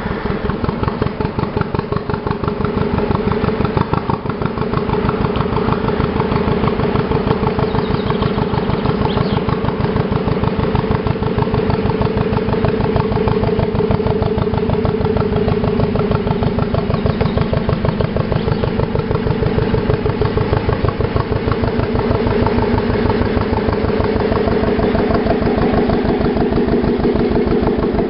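Engine of the 1935 working narrowboat Bootes, running under way with a steady, even beat while towing a second boat. It grows a little louder over the first few seconds as the boat draws close.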